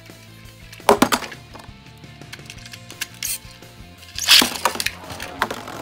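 Two Beyblade spinning tops launched into a plastic stadium about four seconds in: a loud rattling burst as the launchers release and the tops hit the floor, then the tops whirring and clattering against each other. There is a shorter clatter of plastic about a second in.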